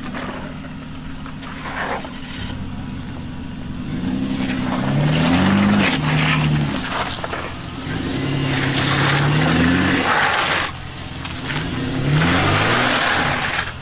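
Off-road 4x4's engine revving up and easing off in three surges over a steady low engine hum, with a rough noisy layer during each surge.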